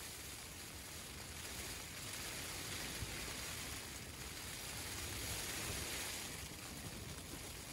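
Rain falling on a tent, heard from inside: a steady patter and hiss of drops on the fabric that swells a little in the middle and eases toward the end.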